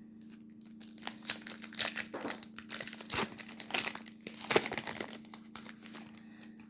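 Foil wrapper of a Topps baseball card pack being torn open and crinkled, a dense run of sharp crinkles for about five seconds, loudest about four and a half seconds in.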